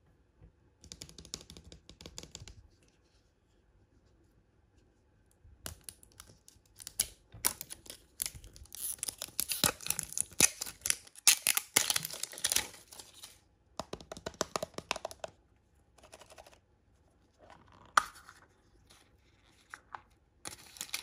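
Thin packaging wrappers being torn open and crinkled by hand, in several bouts of crackling rustle with short quiet pauses and one sharp snap near the end.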